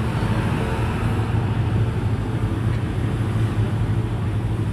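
A vehicle's engine running steadily under load with a low drone as it climbs a steep incline without stopping.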